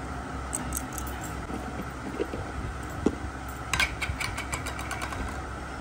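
Steady low background hum, with scattered light clicks and taps, a single sharper tap about three seconds in and a quick run of clicks about four seconds in.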